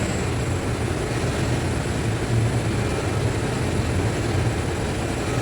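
TIG welding arc on carbon steel: a steady hissing buzz with a low hum underneath, holding evenly while the bead is laid.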